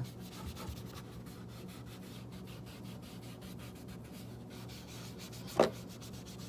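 Steady, quiet rubbing and scrubbing on the casing of a Skullcandy portable speaker as it is cleaned, with one sharp tap about five and a half seconds in.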